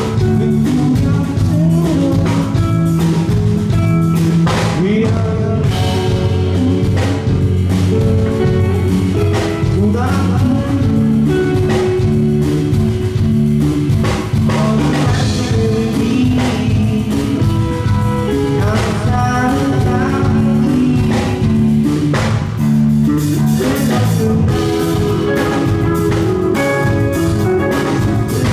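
Live rock band playing: electric guitar over bass and drum kit, with a singing voice at times.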